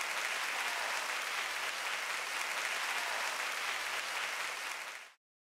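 Theatre audience applauding steadily, fading and then cutting off shortly before the end.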